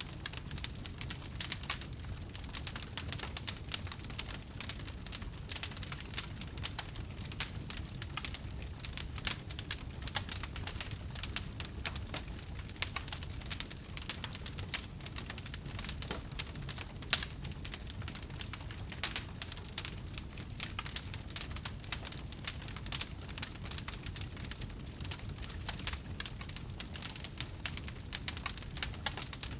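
Wood fire burning, with constant irregular crackling and popping of the burning wood over a low steady rumble of the flames.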